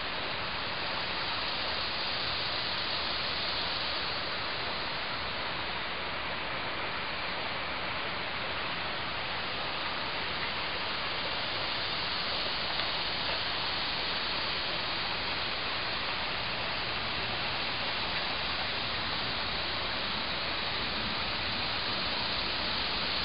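Steady, even background hiss with no distinct events, strongest in the upper range and unchanging throughout.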